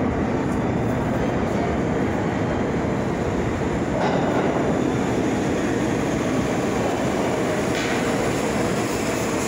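R46 subway train pulling into an underground station, a steady, loud rail rumble that grows a little louder about four seconds in as the train nears.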